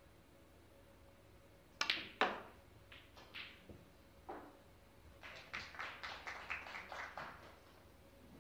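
Snooker balls being played: a sharp knock of the cue on the cue ball, followed at once by the cue ball clicking into an object ball, then a few lighter ball knocks, and near the end a quick irregular run of about a dozen light clicks.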